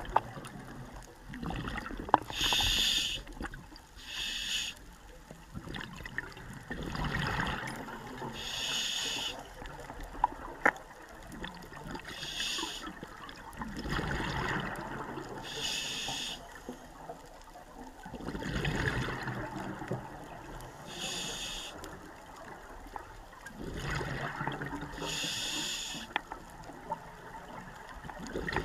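Scuba diver breathing through a regulator underwater: a short hissing inhale, then a longer bubbling exhale, repeating every five or six seconds. A few sharp clicks stand out, the loudest about two seconds in.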